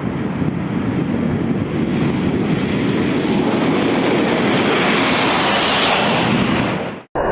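Aeroplane noise as a plane passes close, a steady rushing roar that grows brighter and peaks about five to six seconds in. It cuts off abruptly near the end.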